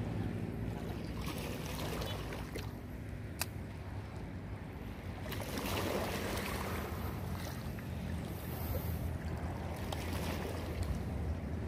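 Wind noise on the microphone over gentle lapping of calm seawater at the shore, with one sharp click about three and a half seconds in.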